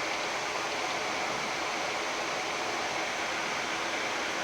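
Steady rushing hiss of a Boeing 787-10 flight deck in flight on approach, an even noise with no changes.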